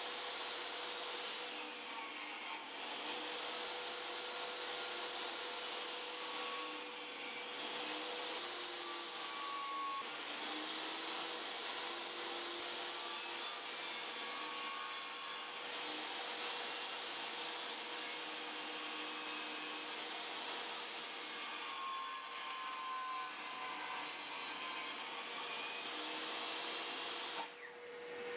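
Table saw running with a steady hum, its blade cutting spruce boards pushed through on a crosscut sled several times; the whine drops and recovers with each cut as the wood loads the blade.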